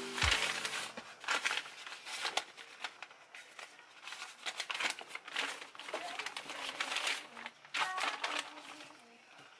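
Brown kraft paper shopping bag rustling and crinkling as it is handled and opened, in many quick irregular rustles.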